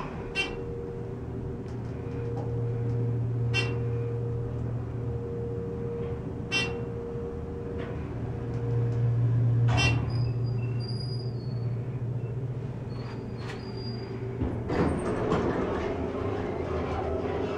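1998 Dover hydraulic elevator climbing: a steady low hum from the pump unit, with a short tick about every three seconds as the car passes each floor. About ten seconds in the hum fades as the car slows and levels, and about fifteen seconds in the car doors slide open.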